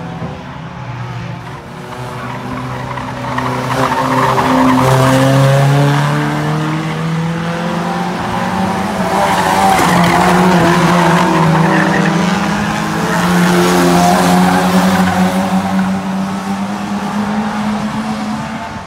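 Hot rod race cars lapping a short oval, their engines revving up and easing off as they come past the camera three times.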